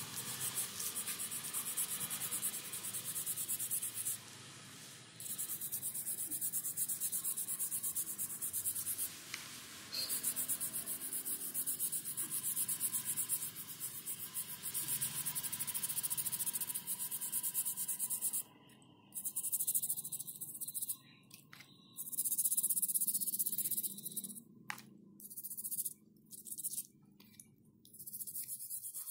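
A plastic toothbrush scrubbing rapidly back and forth through the stiff bristles of a paint brush: fast, scratchy brushing strokes, clearing old paint and dirt out of the bristles. The scrubbing runs in long stretches with a few short pauses, then breaks into shorter bursts in the last third.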